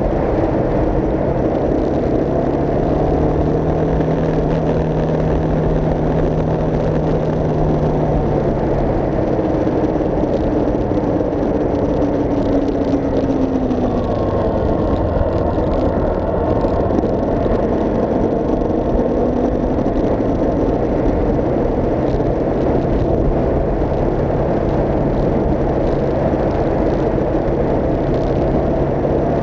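A vehicle's engine running under way with heavy road and wind noise; the engine's pitch holds steady for several seconds, then falls gently about ten to fourteen seconds in, as if easing off or changing speed.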